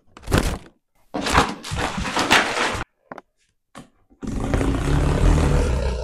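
Clothes and packaging being handled: a cotton shirt flapping and rustling, two light knocks, then a long scraping rustle near the end as a cardboard box is handled.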